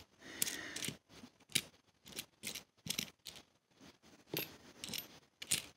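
Pennies clicking against one another as they are picked from a pile and sorted by hand, a string of light, irregular clicks about two or three a second.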